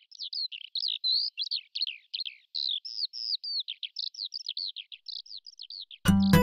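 A songbird singing a fast, continuous song of short, varied, high notes. Loud music cuts in suddenly near the end.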